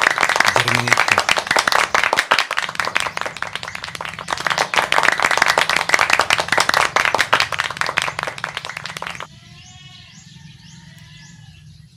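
A loud, dense patter of many sharp taps cuts off abruptly about nine seconds in, leaving birds chirping.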